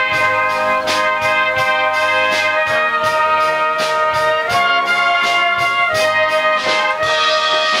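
Brass band playing live: trombones, tubas and cornets in sustained chords that change every second or so, with a steady percussion beat about twice a second.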